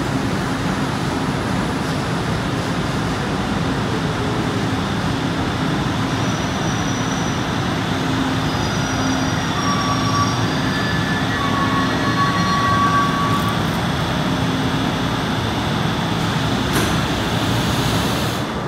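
Metro train running into an underground station and braking to a stop, a steady rumble with thin whining tones in the middle as it slows. About 17 seconds in there is a short burst as the doors open.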